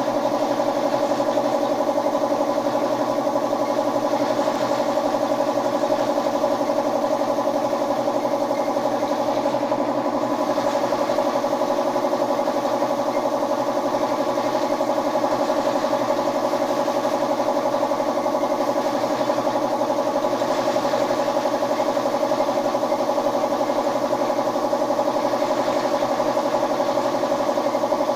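Air compressor running with a steady mechanical drone that does not change.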